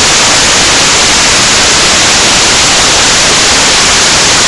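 Loud, steady hiss like static or white noise, unchanging throughout.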